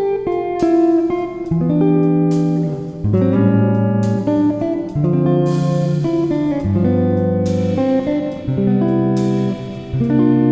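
Background music: plucked guitar chords changing about once a second.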